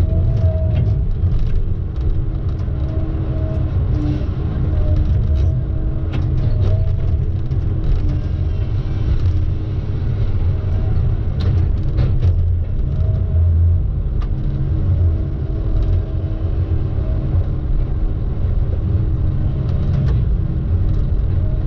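Steady low rumble of a motor vehicle driving, engine and road noise together.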